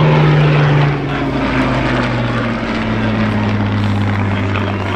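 Hawker Hurricane warbird's piston engine and propeller droning as it flies past. It is loudest in the first second, then the pitch drops as it moves away.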